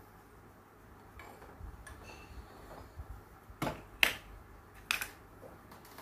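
Light clicks and knocks of small hard tools and parts being handled and set down on a wooden desk. A few faint ones come early, then three sharper knocks follow a little past halfway, the middle one the loudest.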